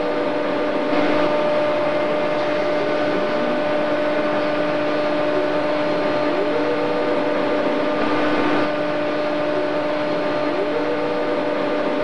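Thermwood CNC router running: a steady machine whine and hiss from the router head and its dust extraction, with a short rising whine twice as the machine speeds up along its path. It is a little louder from about a second in until near the end.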